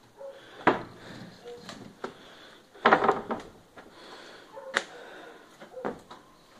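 Scattered knocks and clatter in a small space, a few single hits with a louder cluster about three seconds in.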